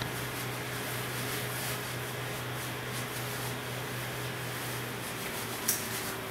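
Steady low hum and hiss of background noise, with a brief click near the end.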